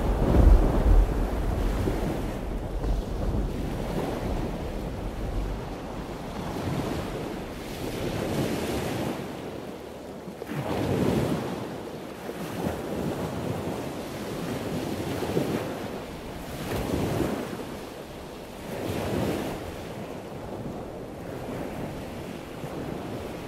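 Ocean surf washing in and out, swelling and ebbing every couple of seconds. A low rumble at the start dies away over the first few seconds.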